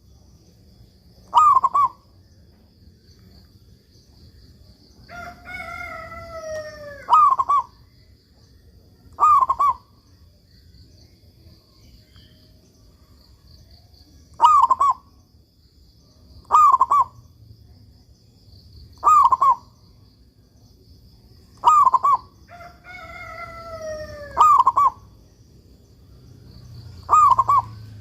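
Zebra dove (perkutut) cooing: short, loud double notes repeated every few seconds. Twice a longer call falls in pitch over about two seconds, and a faint steady high-pitched drone runs underneath.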